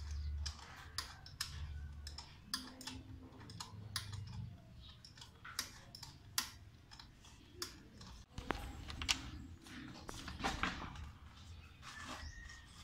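Irregular light metallic clicks and taps of a small hand tool working a bolt on a motorcycle's footrest bracket, over a faint low hum.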